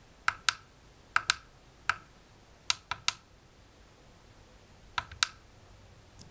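Push buttons on top of an Xleader Bluetooth speaker clicking as they are pressed to step the volume: about ten short, sharp clicks, several in quick pairs, with a pause of about two seconds before the last pair.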